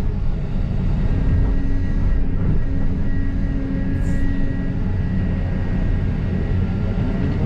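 Volvo EC300EL hybrid excavator's diesel engine and hydraulics working under load as the bucket digs and lifts a load of dirt, heard from inside the cab: a steady low rumble with a faint steady whine over it for the first few seconds.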